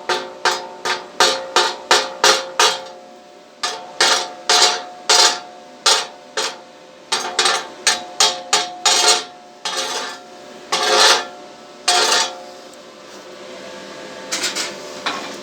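Slag being chipped off a fresh stick weld: a metal tool strikes the steel plate over and over, about three or four ringing knocks a second, with a short pause. A few longer scraping strokes follow, then a couple of quieter knocks near the end.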